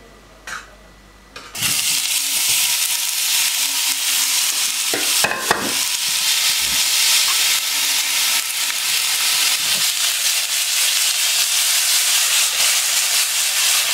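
Chicken breast strips frying in a stainless-steel pan: a loud, steady sizzle that starts suddenly about a second and a half in, with a couple of knocks about five seconds in.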